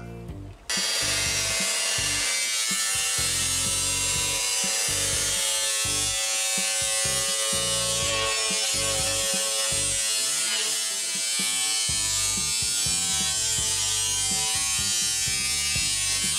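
A handheld electric power tool's motor running steadily at speed with a high whine, under background music. It starts abruptly about a second in.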